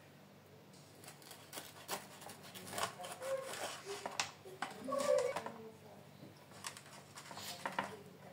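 A knife cutting through a pan-cooked semolina harcha on a wooden board, heard as light, scattered clicks and scrapes.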